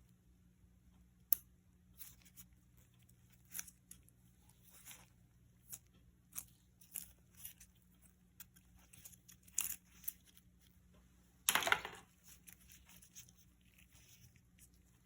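iPad Pro box and packaging being handled and opened close up: scattered small taps, clicks and rustles, with one louder tearing rustle about eleven and a half seconds in.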